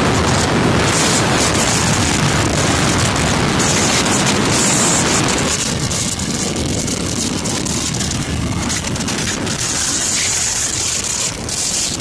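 Strong wind buffeting the microphone on an open wooden boat in a storm at sea, with a rough sea breaking around it: a loud, gusting rush that eases slightly about halfway through.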